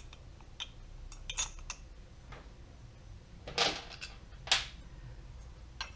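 Light metallic clicks and clinks as the steel parts of a motorcycle slipper clutch are handled and seated by hand, with two short, louder scraping noises about three and a half and four and a half seconds in as tools are picked up.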